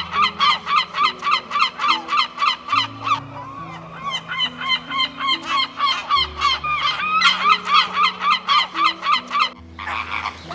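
A flock of waterfowl calling, rapid repeated honking calls about four or five a second that go on for most of the clip, over soft held low notes. Near the end the calls stop abruptly and a different, rougher animal sound begins.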